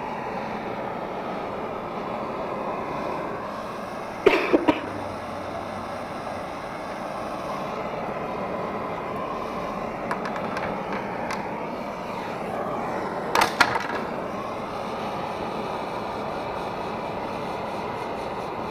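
Handheld blowtorch flame hissing steadily as it is passed over a thin wood strip to scorch and age it. Two brief clusters of sharp knocks come about four seconds in and again past thirteen seconds.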